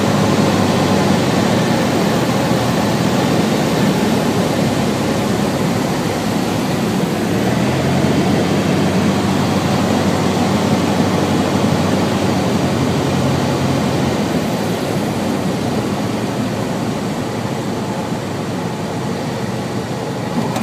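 Cessna 150's engine and propeller heard from inside the cockpit, a steady drone with airflow noise on final approach. The engine note shifts about eight seconds in and the sound eases a little in the second half as the aircraft descends to the runway.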